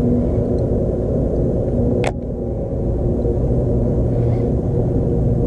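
Steady low rumble and hum of a boat motor running, with one sharp click about two seconds in.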